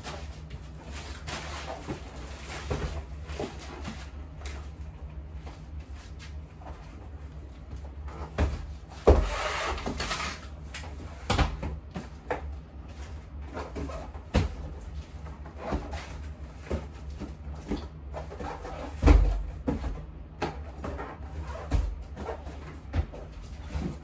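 Cardboard diaper boxes being lifted, set down and stacked on a closet floor: scattered knocks and thumps, the heaviest about nine and nineteen seconds in, with a brief scraping rustle just after the first. A steady low hum runs underneath.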